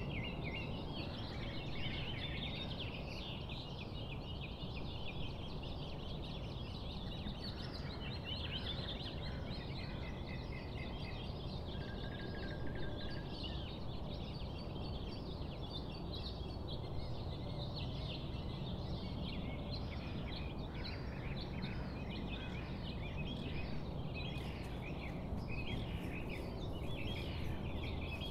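A dense chorus of many small bird chirps and calls over a steady background hiss.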